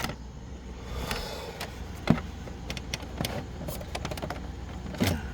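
Scattered light clicks and taps of handling over a steady low hum.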